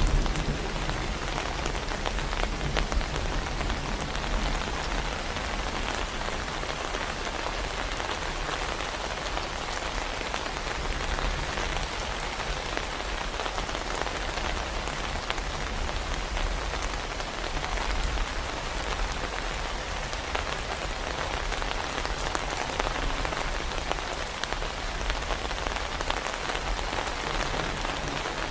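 Heavy rain falling steadily, with many individual drops ticking on a near surface over a low rumble.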